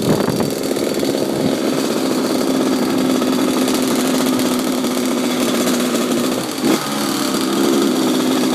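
Dirt bike engine running at a steady, even pitch while being ridden along, heard from on the bike.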